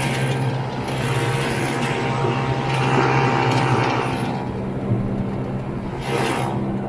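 1969 Ski-Doo Olympique's 320cc single-cylinder two-stroke engine running steadily as the snowmobile cruises across the lake, with a rushing hiss over it that rises and falls.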